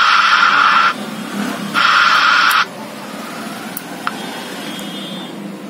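Static hiss from a Belson MP3/FM receiver panel's speaker output as its front buttons are pressed: two loud bursts, the second ending a little over two and a half seconds in, then a fainter steady hiss with a low hum and a single click about four seconds in.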